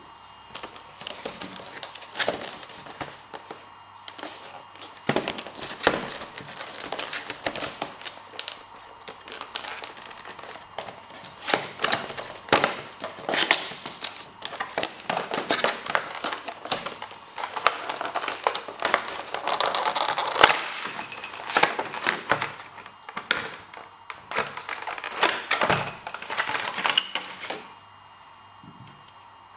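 Cardboard box and packaging of an external hard drive being opened and handled: a steady run of irregular rustling, crinkling, scraping and light tapping and clicking. It stops a couple of seconds before the end.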